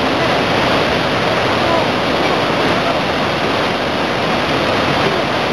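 Loud, steady roar of whitewater pouring down a river fall and rapid.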